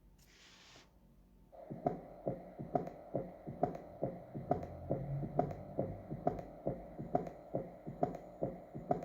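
Recorded heart sounds: a steady run of soft thumps, about two a second, starting about two seconds in. The listener identifies it as a third heart sound (S3), a gallop rhythm.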